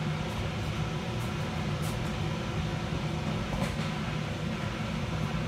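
Steady hum of an inflatable bounce house's electric blower fan, with a few faint thumps from feet landing on the inflated floor.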